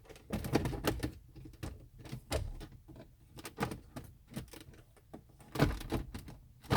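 Irregular clicks and knocks of hand work on the truck's dashboard as the gauge cluster is seated and its bolts are put back in. The two loudest knocks come near the end.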